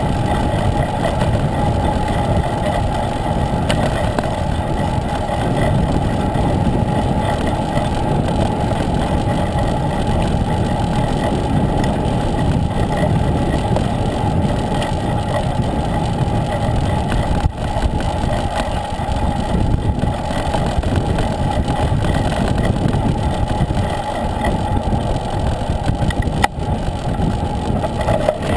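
Steady wind rush and road noise on the microphone of a handlebar-mounted camera as a road bike rolls along at speed.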